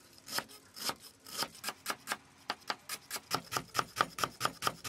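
Chef's knife slicing a lemongrass stalk into thin rounds on a wooden chopping board: a run of short, regular cutting strokes against the board, about two a second at first and quickening to about four or five a second.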